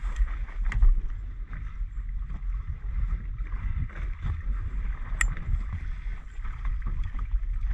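Wind rumbling on the microphone over water sloshing around a small boat, with a sharp click about five seconds in.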